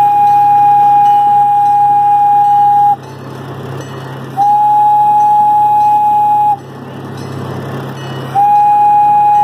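Miniature train locomotive's whistle blown in long, steady single-pitch blasts. It cuts off about three seconds in, sounds again for about two seconds, and starts a third time near the end. The train's low running rumble is heard in the gaps.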